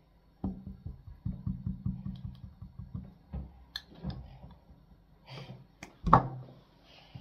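A metal spoon scooping plum jam out of a small glass jar: a quick run of soft knocks and scrapes against the glass, then a louder knock about six seconds in as the spoonful goes onto the pancake on its plate.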